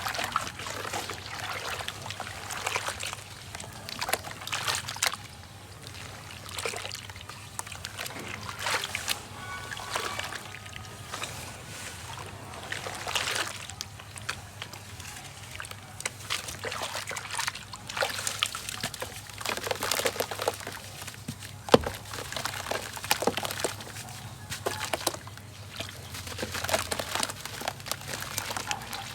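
Wet sand crumbling and breaking apart in water, with sloshing and trickling; irregular soft crumbling swells and a sharp click a little past the middle.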